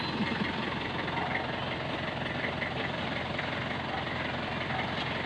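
A vehicle engine running steadily at idle, an even rumble with no clear changes.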